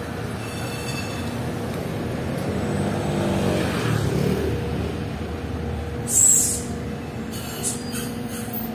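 Street traffic: car and scooter engines and tyres passing, swelling around three to four seconds in. About six seconds in a city bus's air brakes let out a short, loud hiss.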